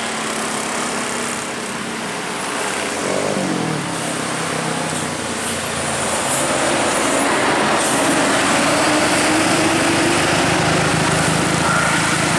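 Road traffic going by: a passing vehicle's engine note falls in pitch about three seconds in. From about seven seconds on, a bus engine rises slowly in pitch as it pulls away.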